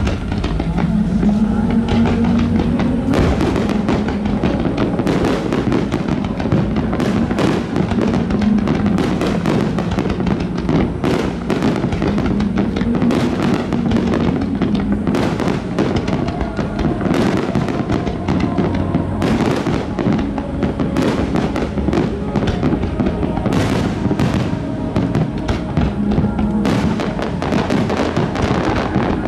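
Large aerial fireworks bursting and crackling in a dense, rapid series over music.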